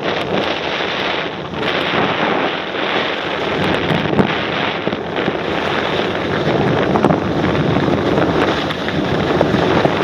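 Wind rushing over the microphone while skiing downhill, mixed with skis scraping and chattering over icy, hard-packed piste. The noise is loud and continuous, swelling and dipping slightly.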